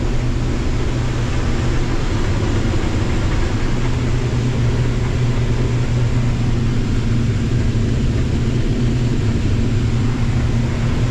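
Combine harvester running steadily under load while harvesting corn: a constant low engine hum with the even noise of the machine working, unchanging throughout.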